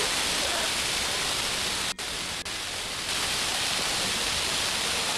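Steady broad rush of city traffic noise heard from high above a busy intersection, with no distinct horns or engines standing out. It cuts out briefly twice about two seconds in.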